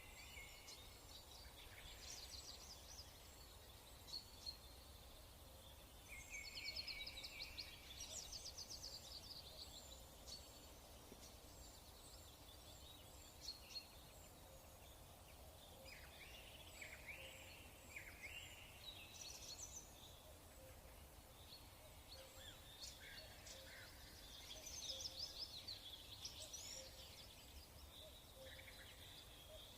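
Faint birdsong: several small birds chirping and trilling in repeated short phrases, over a low background hum.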